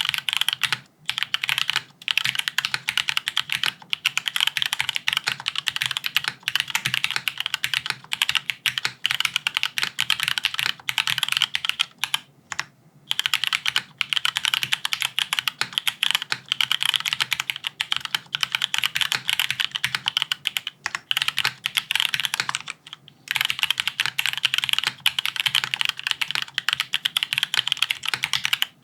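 Fast, continuous typing on a Haven65 XT mechanical keyboard, gasket-mounted with an aluminium plate, no dampening foam, linear switches and PBT keycaps: a dense stream of keystroke clacks. It breaks off briefly about a second in, near the middle and again about two-thirds of the way through.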